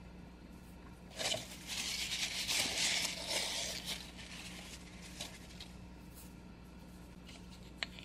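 Paper rustling and brushing under a hand for about three seconds, starting about a second in, followed near the end by a few small clicks from handling a jar's screw cap.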